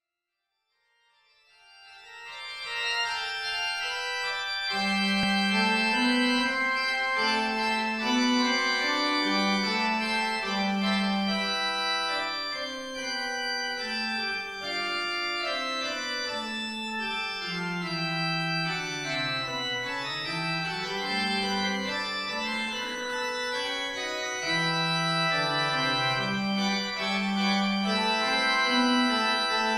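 Church organ playing a prelude: held chords over a bass line that moves step by step, fading in over the first few seconds.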